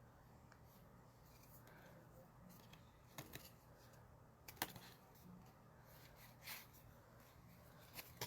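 Near silence: room tone with a few faint short clicks and rustles.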